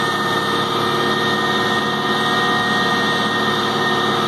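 Aircraft pushback tug's engine running steadily, heard from inside the tug's cab as it pushes a Boeing 767 freighter back on a towbar, with a steady high-pitched whine over the engine note.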